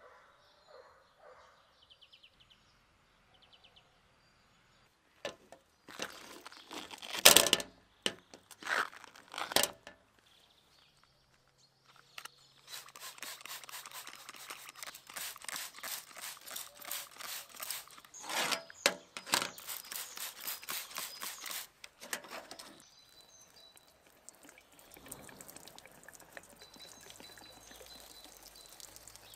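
Trigger spray bottle spritzing cleaner onto a metal mesh range-hood grease filter in a quick run of sprays, after a few loud sudden sounds. Near the end, water poured over the tilted mesh filter, a soft steady splashing hiss.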